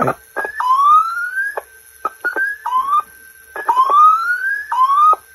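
Phonotrix 88 pocket tape recorder sounding through its speaker as the tape is worked with the transport buttons. Its output comes as a string of whistling glides that rise in pitch, each cut off sharply by a click.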